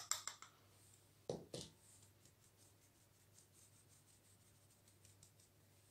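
A glass bowl clinks against a metal mesh sieve as cocoa powder is tipped in, followed by two dull knocks about a second and a half in. After that come only faint light scratching and ticking from the sieve being handled.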